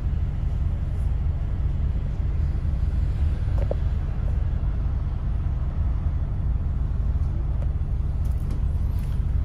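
Steady low engine rumble and road noise inside a moving bus.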